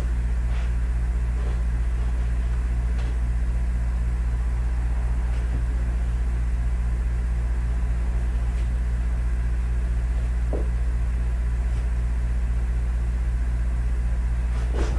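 Steady low machine hum with a faint even pulsing. A few faint soft scrapes and taps come from an ink cartridge being pressed and drawn across a paper towel to blot its nozzles.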